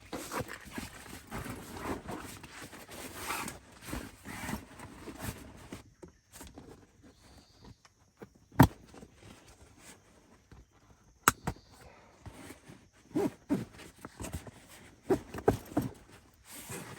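Rustling and handling noises for the first few seconds, then two sharp clicks a few seconds apart, and a run of soft knocks like footsteps near the end.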